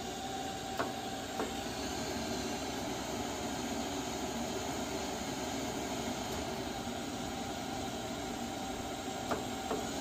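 AO Smith tankless water heater running a call for heat: a steady whir and hiss with a couple of faint clicks about a second in and again near the end. The burner does not light, a flame failure (error 111) that points to an ignition problem, maybe the ignition transformer.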